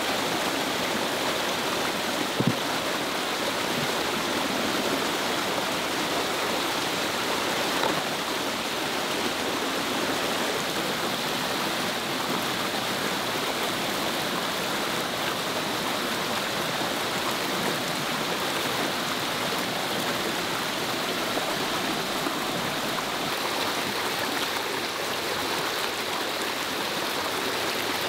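Mountain stream rushing steadily over rocks, with water splashing from a bamboo pipe. A brief knock about two and a half seconds in.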